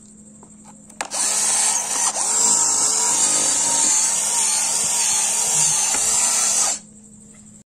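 A small electric motor runs for about six seconds, starting and stopping abruptly, with a whine whose pitch wavers up and down.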